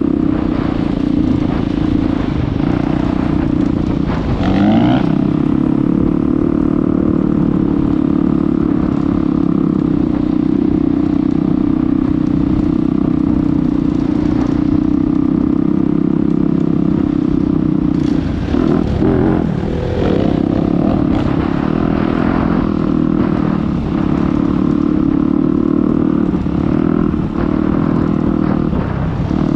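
Dirt bike engine running steadily while riding, heard from on the bike, with short rises and falls in revs about four seconds in and again around eighteen to twenty seconds in.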